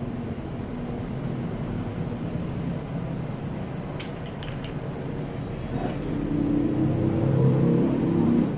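Low, steady motor-like rumble and hum that grows louder over the last two seconds and cuts off suddenly at the end, with a few light clicks about four seconds in.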